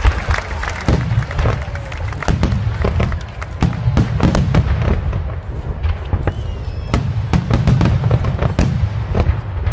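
Aerial firework shells bursting in rapid succession: a dense run of sharp bangs and crackles over a continuous low rumble.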